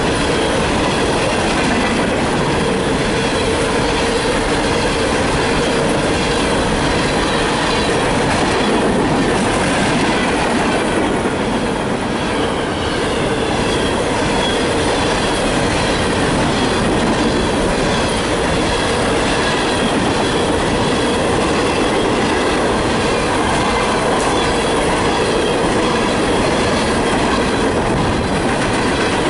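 Empty CSX coal hopper cars rolling past at close range: a steady loud clatter of steel wheels on the rails, with thin wheel-squeal tones running through it.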